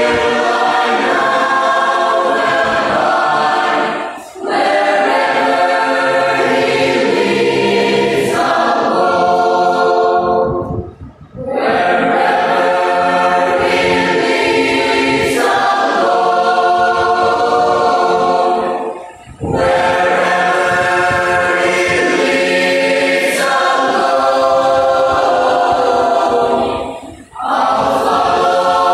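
Mixed choir of young men and women singing together in parts, in long phrases with a brief pause for breath between them four times.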